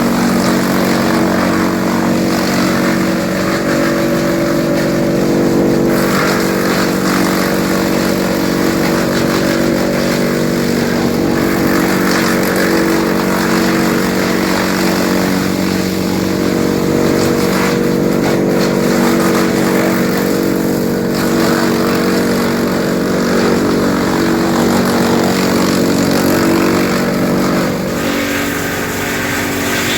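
TOMCAT M4250AFP tractor PTO-driven woodchipper running steadily while chipping citrus prunings: a constant engine-and-rotor drone, with stretches of rougher noise as branches go through, dipping slightly near the end.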